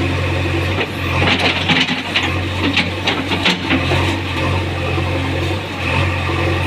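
JCB 3DX backhoe loader's diesel engine running steadily, with a run of sharp knocks and clatter between about one and four seconds in.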